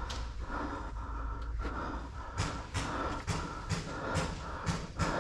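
A person breathing heavily close to the microphone. In the second half come short, sharp knocks about every half second, like footsteps or gear knocking.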